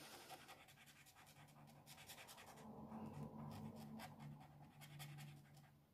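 Near silence with faint, irregular scratching of a fibre brush-tip felt pen stroking across paper as it colours in.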